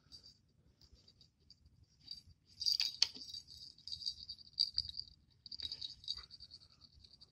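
A small brass jingle bell on a cat-toy wand shaken and jingling in short rattling bursts, loudest about three seconds in, with a few sharp clicks.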